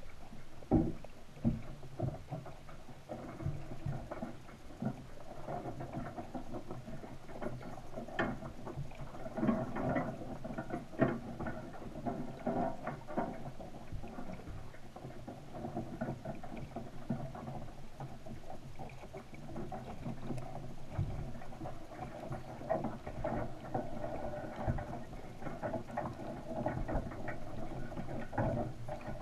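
Underwater ambience heard through a submerged camera: a low rumble with scattered clicks and knocks, the sharpest about a second in and again around nine to eleven seconds in.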